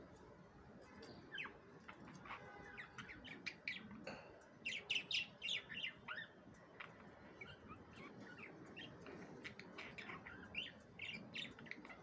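Pet budgerigars chirping and chattering in quick short chirps, loudest in a busy run around the middle and picking up again near the end.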